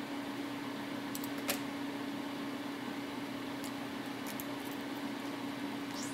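Steady low machine hum over a hiss, with a few faint short ticks.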